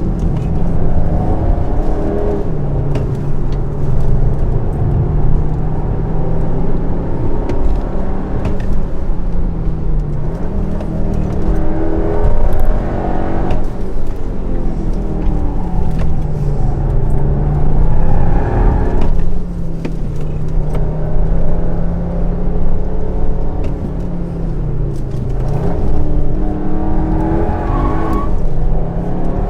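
Škoda Kodiaq RS's 2.0-litre four-cylinder engine being driven hard through the gears. Its pitch climbs and drops several times as it accelerates, lifts off and changes gear, over steady road noise.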